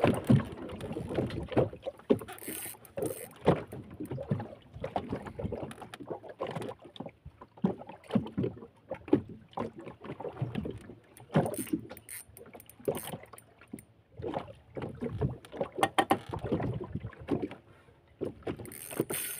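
Irregular knocks, creaks and water splashes from a small boat, with the handling noise of a heavy rod and reel, as an angler fights a hooked big tuna.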